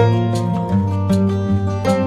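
Instrumental background music led by plucked guitar, with notes picked out over steady held tones.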